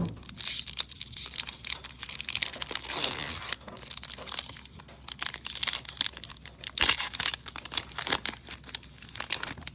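A Magic: The Gathering booster pack's foil wrapper being torn open and crinkled by hand, in irregular crackles with louder bursts now and then.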